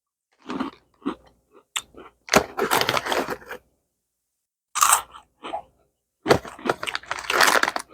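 Cheetos snacks being crunched and chewed close to the microphone, in irregular bursts with short pauses between bites.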